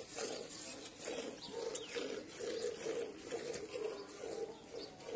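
Cow being milked by hand: alternating squirts of milk hitting the foamy milk in a steel bucket, in an even rhythm of about three squirts a second.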